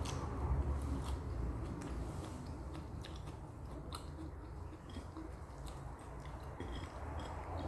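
A person chewing and biting food close to the microphone, with small wet mouth clicks over a low steady hum.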